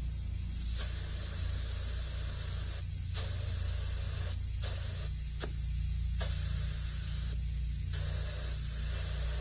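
Compressed air hissing out of a UTV tire through the bleed-off button of a tire inflator gauge, released in several spurts with short pauses between them to bring the pressure down to 20 psi.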